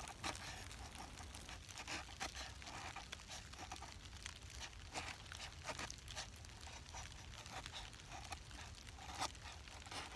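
Schrade SCHF56 bushcraft knife's 1095 carbon steel blade shaving thin curls off a stick of wood to make a feather stick: a run of faint, short, irregular scraping strokes, a few of them sharper.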